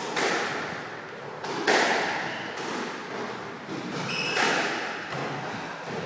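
Squash ball being struck by rackets and smacking off the court walls during a rally. There are three loud hits, one at the start, one under two seconds in and one past four seconds, with lighter knocks between, and each rings on with a long echo in the enclosed court.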